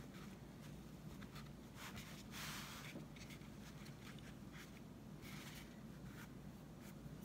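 Faint rustling and brushing of fingers pressing and rubbing a stiff felt hat brim down onto a gourd, with one slightly louder scrape about two and a half seconds in, over a low steady hum.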